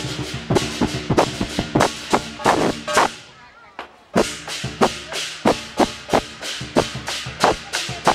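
Lion dance percussion: a drum with clashing cymbals beating a fast, steady rhythm of about three to four strikes a second, with the cymbals ringing on underneath. The beat drops away for about a second near the middle, then comes back in sharply.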